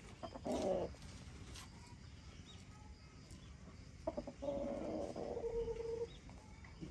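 Rooster calling twice: a short cluck about half a second in, then a longer drawn-out call about four seconds in that ends on a held note and lasts nearly two seconds.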